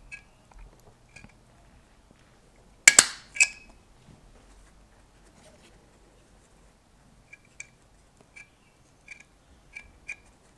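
Handheld stapler squeezed shut to drive a staple through a vacuum-cleaner-bag mask and rubber-band strap: a sharp double click about three seconds in. Light ticks of the mask's filter paper and the stapler being handled come and go around it.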